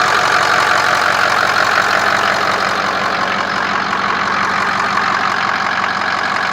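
Ford 6.0L Powerstroke V8 turbodiesel idling steadily, heard with the hood open. It has about 200,000 miles on it and sounds healthy to the owner.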